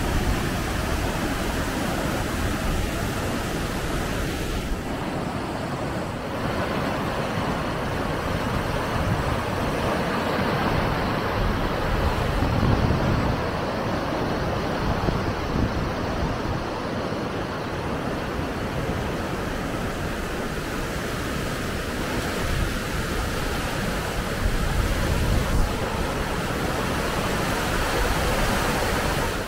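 Flooded Schuylkill River water rushing and churning through a line of breaking standing waves, a steady, continuous noise of turbulent water.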